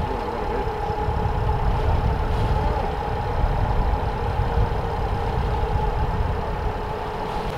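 A boat's engine running steadily with a constant drone, over a low uneven rumble.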